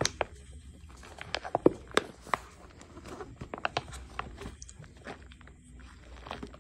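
Crumbly dried cornstarch and gym chalk being crushed and pressed by hand: a run of sharp crunches and crackles, loudest about two seconds in and thinning out over the last couple of seconds.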